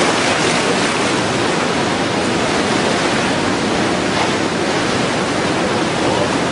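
The Ganges in heavy flood: fast water rushing in a loud, steady noise.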